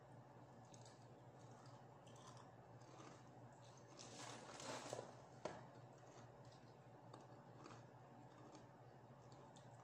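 Near silence with faint eating and handling sounds: scattered soft clicks, and a brief rustle of a cardboard fried-chicken box about four to five seconds in, ending in one sharp click.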